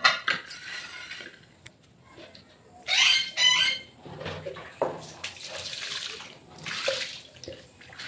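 Water poured from a mug and splashing over a flat metal tawa as it is rinsed and rubbed by hand. There is scraping and clicking at the start, and two short pitched sounds about three seconds in, the loudest moment.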